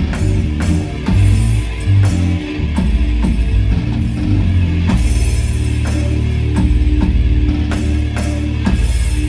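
Live rock band playing loudly: drum kit strokes and cymbals over guitar and a heavy bass, with the bass settling onto a held low note about five seconds in.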